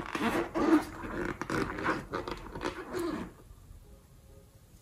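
Liquid-filled latex balloon being squeezed and handled, its rubber squeaking and rubbing irregularly under the fingers for about three seconds, then falling quiet.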